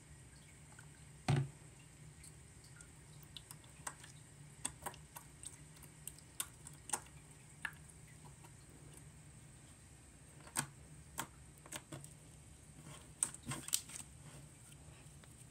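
Slime being squished and poked by hand, giving irregular small clicks and pops, with one louder thump about a second in.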